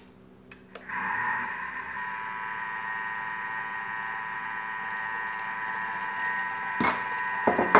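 Thermomix motor starting about a second in and running steadily at speed 4 with an even whine, its blades mixing pesto while olive oil is drizzled in through the lid. A couple of sharp knocks near the end.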